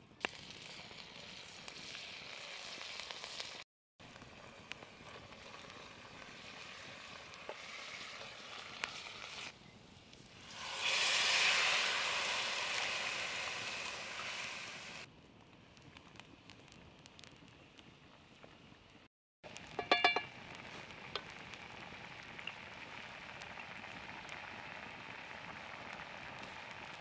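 Chickpeas and grain sizzling in a pan over a wood fire, with a much louder hiss of sizzling for a few seconds around the middle as coconut milk is poured into the hot pan. About twenty seconds in there is a brief sharp clatter.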